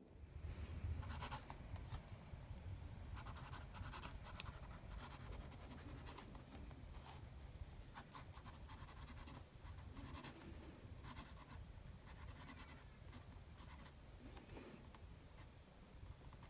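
Extra-fine steel nib of a TWSBI Eco-T fountain pen writing on smooth Clairefontaine paper: faint, soft scratching of pen strokes with just a hint of feedback from the nib. A steady low hum lies underneath.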